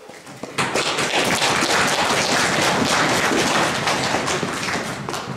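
Audience applauding: many hands clapping at once, starting about half a second in and thinning out near the end.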